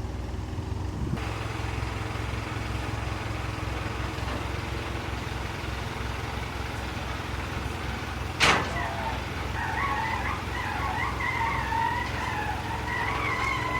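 A vehicle engine running steadily at idle, with a single sharp crack about eight and a half seconds in, then a wavering high-pitched squeal that continues to the end.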